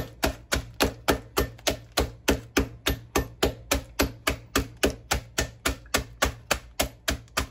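Ice cubes in a zip-top plastic bag being pounded with a metal mallet on a stone countertop: steady, even knocks about three a second as the ice is crushed.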